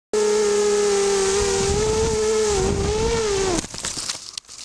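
QAV250 quadcopter's four Sunnysky 2300Kv brushless motors and 5x3 props whining steadily, the pitch wavering slightly with throttle. A little over three and a half seconds in the whine dips and cuts off. Crackling and rustling follow as the quad comes down in foliage.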